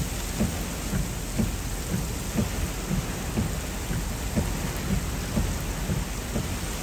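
Heavy wind-driven rain pouring steadily onto pavement, with gusts of wind rumbling unevenly against the microphone.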